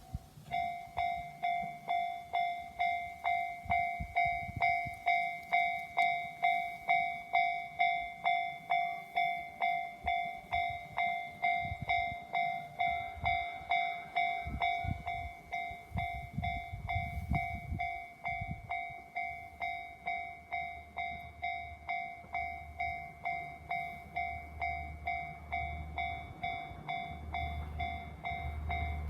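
Japanese level-crossing warning bell ringing a steady, fast electronic ding, about two and a half strikes a second, the signal that a train is approaching. A train's low rumble and hum join in during the second half.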